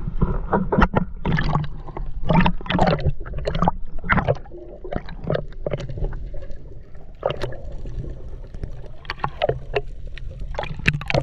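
Seawater sloshing and gurgling around a waterproof camera held half under at the surface: a quick run of irregular splashes for the first few seconds, softer sloshing through the middle, then more splashes near the end.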